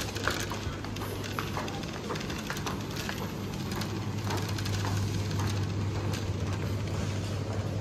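Supermarket background noise: a steady low hum with scattered light clicks and rustles.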